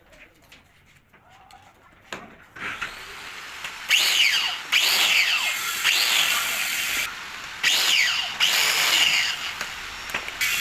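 Handheld electric power tool working on metal in several loud bursts, separated by short pauses. Its whine drops in pitch each time it is pressed in under load.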